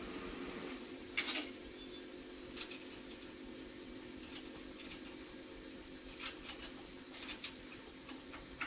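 Steady hum and hiss of a large repair shop, with a few short, light metallic clicks and clinks as a mechanic works by hand at a car's wheel hub, fitting wheel spacers. The clearest clicks come about a second in and again a second or so later.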